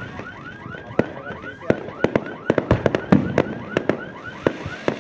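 Aerial fireworks bursting overhead in a rapid, uneven run of bangs and cracks, thickest about halfway through. Under them a repeating rising-and-falling warble, about four chirps a second, runs until about halfway and then stops.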